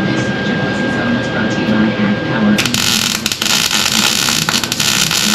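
Steady hum, then about two and a half seconds in an electric welding arc strikes and crackles and hisses continuously while spot-welding steel rocker panel sheet metal.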